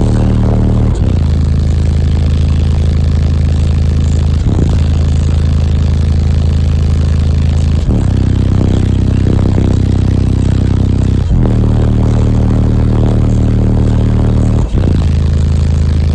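Truck cab subwoofers of a 10,000-watt car audio build playing very loud, deep sustained bass notes, the pitch stepping to a new note about every three and a half seconds.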